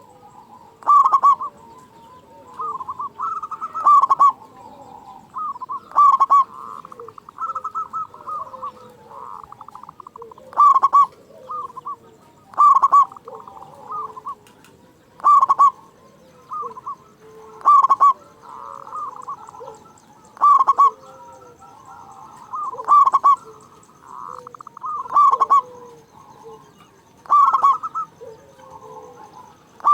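Zebra dove (perkutut) cooing loudly, repeating its rolling call about every two to two and a half seconds, with softer cooing in between.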